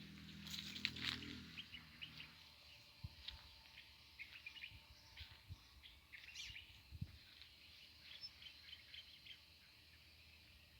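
Small songbirds chirping in short, quick, high calls, busiest about half a second in and thinning out toward the end. A faint low rumble fades away in the first couple of seconds.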